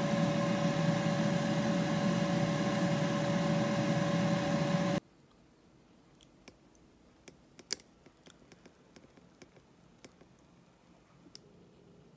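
Philips air fryer running: a steady fan-motor hum with one constant tone, cutting off suddenly about five seconds in. After that only a few faint clicks and taps.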